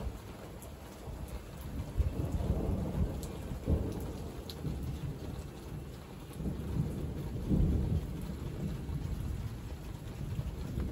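Heavy rain pattering steadily while thunder rumbles in waves, swelling about two seconds in and again about seven seconds in.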